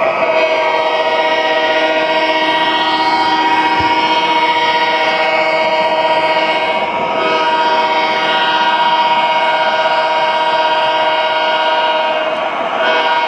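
Model BNSF diesel locomotive's onboard sound system playing a diesel horn, held in long blasts with a short break about halfway and another near the end.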